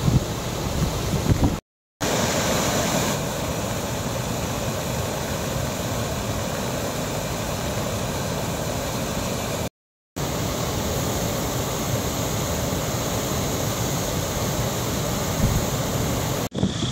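Muddy floodwater pouring over a low concrete weir and churning over rocks below: a steady rushing roar, broken twice by brief silences.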